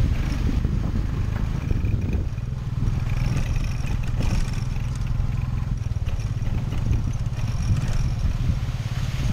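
Motorcycle-drawn tuk tuk (remork) riding over a bumpy dirt road, heard from the passenger carriage: the motorbike engine runs steadily under the jolting and rattling of the carriage over the bumps.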